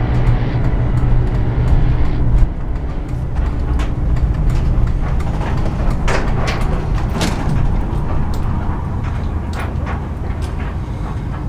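Engine and road noise of a 2000 Ford E-350 Super Duty van's V10, heard from inside the cab while it moves slowly. The level drops about two seconds in, and a scatter of sharp knocks and rattles follows as the van rolls into a shop bay.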